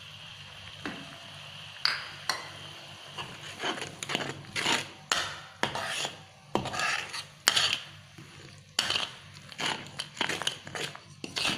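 Metal spatula stirring chili paste frying in oil in a pan, scraping and knocking against the pan in quick irregular strokes that start a few seconds in.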